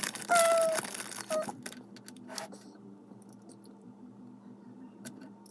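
Plastic Lego pieces rattling and clicking as hands search through them for a piece, busiest in the first second, then a few scattered light clicks.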